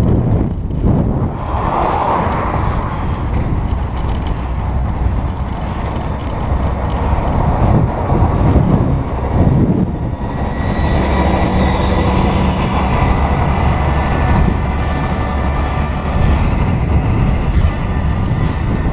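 Wind rushing over a bicycle camera's microphone, mixed with road traffic noise while riding. From about ten seconds in, a bus's engine runs close alongside, adding a steady hum over the rush.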